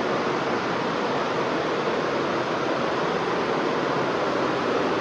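Steady din of several multi-head computerised embroidery machines running together, an even unbroken machine noise.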